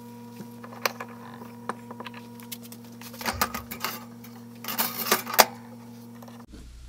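Clinks and clatter of small metal parts handled at a workbench as a toaster oven is opened and a heated crankshaft bearing is lifted out, in two bursts about three and five seconds in. Under it a steady electrical hum runs and cuts off suddenly near the end.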